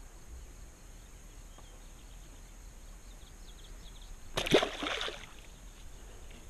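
Quiet open-air background, then about four and a half seconds in a single short splash in pond water beside a kayak.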